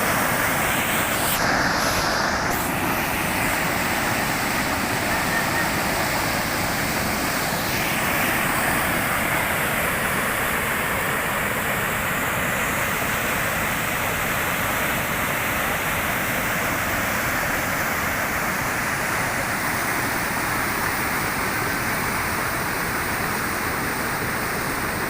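Fast floodwater rushing, a loud, steady, unbroken wash of water noise.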